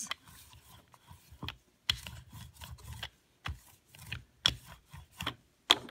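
Inked rubber brayer rolling back and forth across a foam printing plate, a low rubbing rumble on each stroke. Several sharp clicks break in between the strokes.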